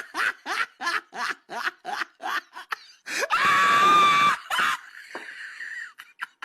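Rapid, breathy laughing at about five short bursts a second, followed by a loud scream held for about a second about three seconds in.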